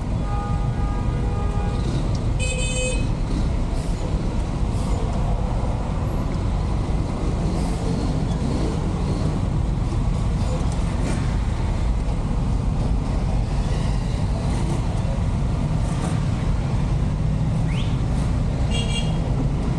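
Steady low engine rumble and traffic noise inside a truck cab moving slowly through dense city traffic. Short, high-pitched horn beeps from nearby vehicles sound about two and a half seconds in and again near the end.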